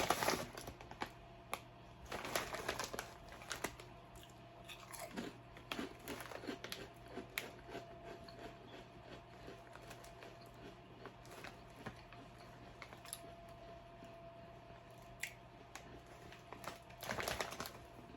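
A person chewing and crunching potato chips in quick, irregular bites, with a chip bag crinkling briefly a couple of seconds in and again near the end.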